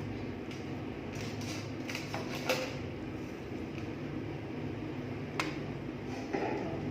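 Eating sounds while picking at and chewing a tilapia: a few short rustles and two sharp clicks over a steady room hum.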